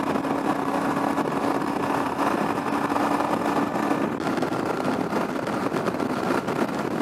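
Yamaha Ténéré 700's parallel-twin engine cruising in sixth gear near 5,000 rpm at highway speed, a steady engine hum under loud wind and road noise. The engine tone sinks into the wind noise about halfway through.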